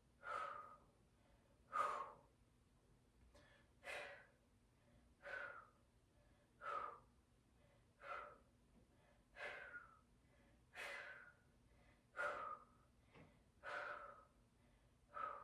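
A woman breathing hard and rhythmically through the mouth, a short audible breath about every second and a half, from the effort of holding a side plank.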